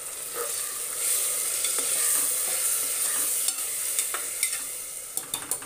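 Tomato puree and chickpeas sizzling in hot oil in an aluminium pressure cooker while a metal spoon stirs them, frying the puree until its raw smell goes. The sizzle swells about a second in, and the spoon clicks against the side of the pot several times, most of all near the end.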